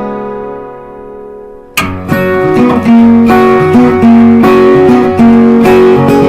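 Background music on acoustic guitar: a chord rings out and fades, then a fresh strum a little under two seconds in, followed by plucked notes.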